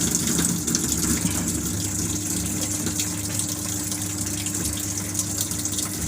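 Water rushing into the drum of an IFB 6.5 kg top-load washing machine as it fills at the start of a wash cycle, with a steady low hum underneath.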